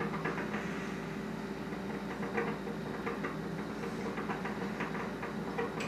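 A steady low mechanical hum, with faint small clicks scattered through it.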